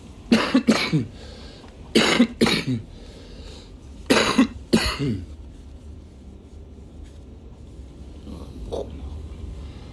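A man coughing in a fit: three bursts of two or three coughs each in the first five seconds, then one faint cough near the end.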